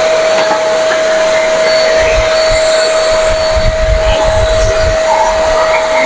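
Corded 1000-watt RedSwiss handheld vacuum cleaner running steadily through a long suction hose. It gives a constant high whine over a rush of air as it pulls dust from crevices, with a low rumble for a few seconds in the middle.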